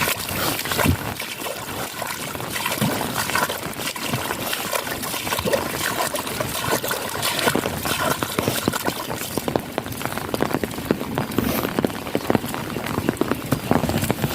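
Heavy rain falling, with runoff water pouring and trickling and a dense patter of drops splashing.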